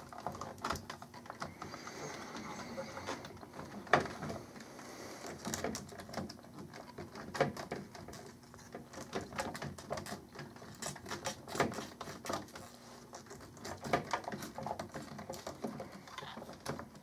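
Hands handling 12 V sealed lead-acid batteries and their wiring in a battery cartridge: scattered clicks, taps and knocks from the battery cases, metal tray and spade terminal connectors, with light rustling, the sharpest knock about four seconds in.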